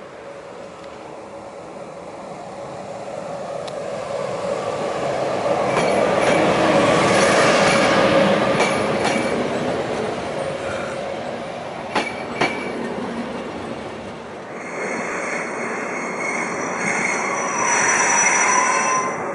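Rc-class electric train passing close by: rail and wheel noise builds to a peak, with two sharp clacks about two-thirds of the way through. After a cut, another Rc-class electric locomotive with coaches moving, with steady high-pitched tones over its running noise.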